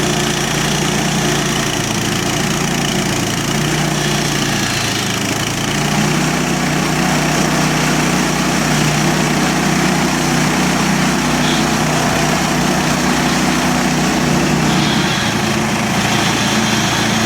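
Gasoline engine of a portable band sawmill running steadily, its pitch stepping up slightly about six seconds in.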